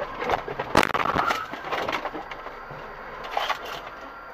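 A car collision heard through a dashcam: a sharp bang a little under a second in, then crunching and cracking for about half a second, and a shorter burst of clatter about three and a half seconds in, over steady road noise.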